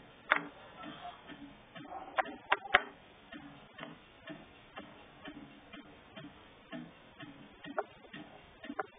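Small wooden letter blocks being handled and knocked together: irregular sharp clicks and taps, with three louder knocks in quick succession about two seconds in and softer ticking throughout.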